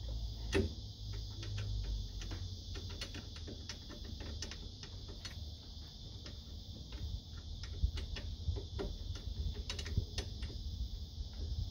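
Irregular light clicks and taps from hands working at a disc brake caliper as it is lined up over the rotor and its bolts are started.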